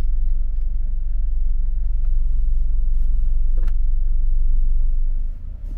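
Steady low rumble of a car idling, heard from inside the cabin, with a faint click about three and a half seconds in.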